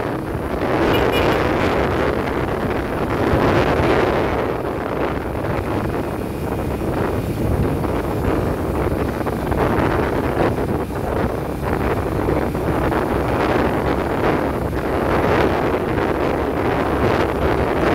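Wind rushing over the microphone on a moving vehicle, with steady road noise underneath.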